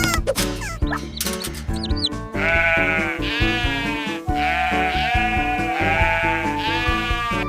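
Background music with a cartoon sheep bleating over it, five or six wavering bleats in a row starting a little over two seconds in; before that, quick short sound effects over the music.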